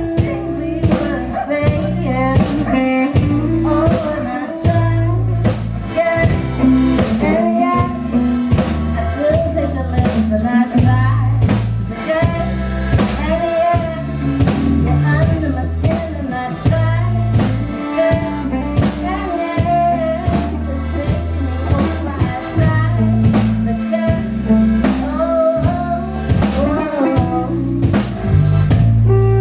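Live rock band playing a song, with drum kit, bass and electric guitar under a steady beat.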